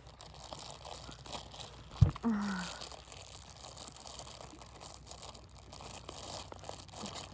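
Plastic bag crinkling and rustling as slime is handled and bagged, with one sharp thump about two seconds in.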